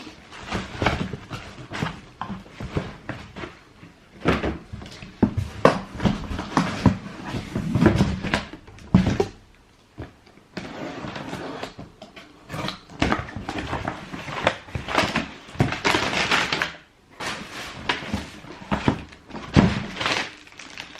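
Cardboard shoe box and paper wrapping being handled: irregular rustling and crinkling with many knocks and thuds.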